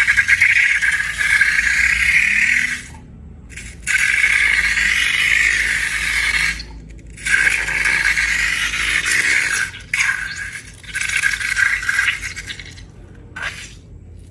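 Rattling of many small hard pieces pouring or shaking against a container, in several bursts of two to three seconds with short pauses between.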